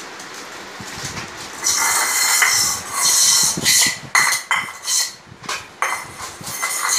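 Stainless-steel plates and bowls clinking and knocking as they are handled on a stone floor. It starts about a second and a half in, with a run of sharp metallic knocks, each ringing on briefly.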